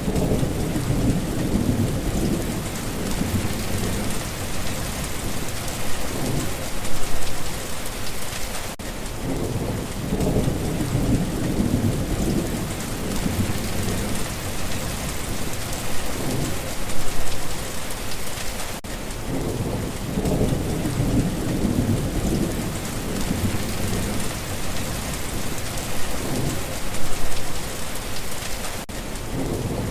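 Steady heavy rain with low rolling thunder, the rumbles swelling and fading about every ten seconds, with a brief dropout in the sound just before each new swell.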